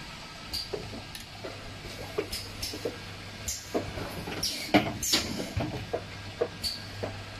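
Automatic popping boba filling and packing machine running on a conveyor line: short air hisses from pneumatic cylinders and sharp mechanical clacks come irregularly, several times, over a steady low hum, with the loudest cluster about two-thirds of the way through.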